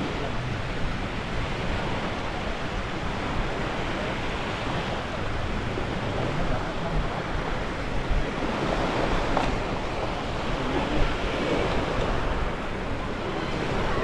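Small waves breaking and washing up a shallow sandy beach in a steady surf wash, with wind rumbling on the microphone.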